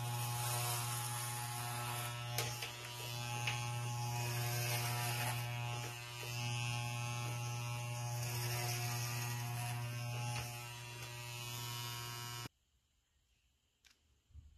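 Wahl electric hair clippers buzzing steadily with a low hum as they run through hair. The motor cuts off abruptly about two seconds before the end, followed by a few faint clicks.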